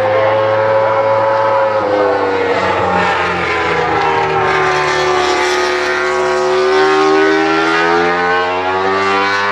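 Honda RC213V MotoGP bike's V4 engine running on track. Its note drops about two seconds in, stays low while the bike leans through a corner, then climbs again near the end.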